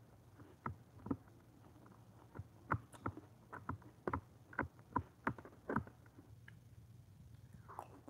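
Metal spoon clicking and scraping against a clear plastic food container while eating: about a dozen irregular clicks in the first six seconds, then quieter.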